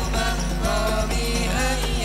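Hadroh ensemble performing sholawat: male voices singing a melodic line together over the regular beat of rebana frame drums, through a stage sound system.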